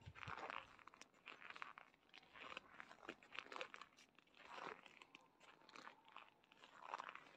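Quiet footsteps crunching in packed snow, about one step a second.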